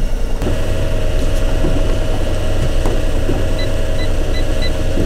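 Boat engine running steadily at low trolling speed, a constant low rumble with a steady hum over it and a hiss across the range. A row of four short high beeps comes near the end.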